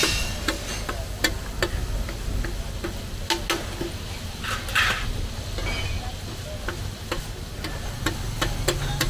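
Liver frying on a tawa: a metal spatula taps and scrapes irregularly against the griddle over the sizzle, with a louder hiss about five seconds in. A steady low rumble runs underneath.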